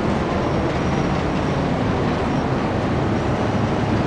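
Steady rumbling noise on board a moving cargo ship, with a strong low rumble and a rushing hiss that does not change.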